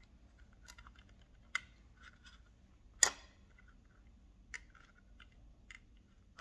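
Scattered small clicks and taps of hands working wires and terminals in an electrical panel, with one sharper click about three seconds in.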